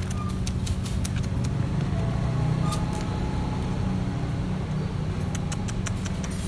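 A steady engine hum, with scattered crinkles and clicks from a plastic food sachet being torn open and handled, most of them in the first second and near the end.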